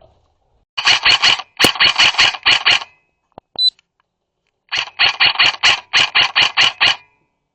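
Airsoft rifle firing three bursts of rapid shots, about six or seven a second, each shot a sharp crack, with one small click between the second and third bursts.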